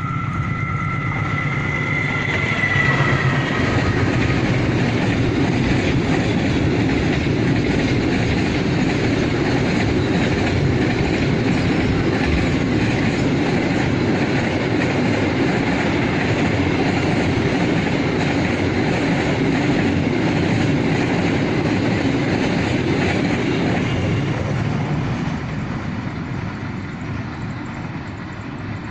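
Freight train passing close by, with a loud, steady rumble and clatter of wagon wheels on the rails that eases off near the end. Two high steady tones sound briefly at the start and fade out within the first few seconds.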